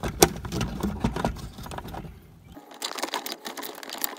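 Metal clinks and knocks of a socket and extension being handled on a screw. About two and a half seconds in, these give way to the rapid clicking of a socket ratchet being worked to run the screw in.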